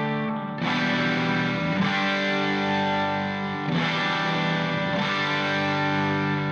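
Background music of sustained guitar chords played through effects, the chord changing every second or two.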